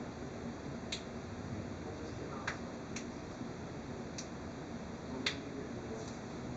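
Steady background hiss with about seven short, sharp clicks at uneven intervals, the loudest a little past five seconds in.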